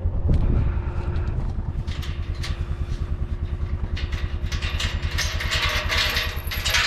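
A vehicle engine running with a steady low pulse, with rattling and clattering joining in from about the middle.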